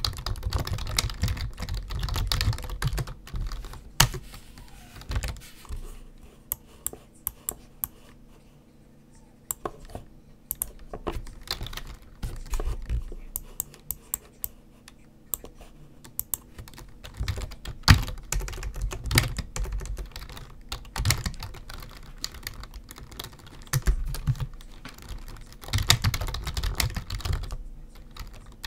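Typing on a computer keyboard: bursts of rapid key clicks broken by quieter pauses with only a few scattered clicks, the longest lull about a quarter of the way in.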